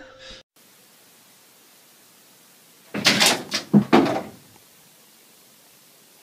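A short cluster of knocks and thumps about three seconds in, lasting about a second and a half, over faint steady hiss.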